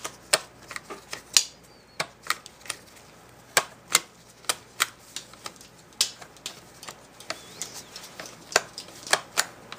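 Sharp plastic clicks and snaps, about two a second at irregular spacing, as the choke/start lever and throttle linkage of a Stihl MS170 chainsaw are worked back and forth by hand to check that the linkage operates correctly.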